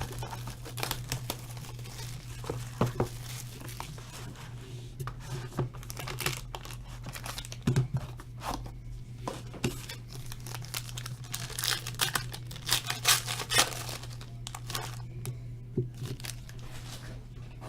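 Plastic wrapping being torn and crinkled as a sealed trading-card box is opened, in a run of irregular crackles and rustles. A steady low hum sits under it throughout.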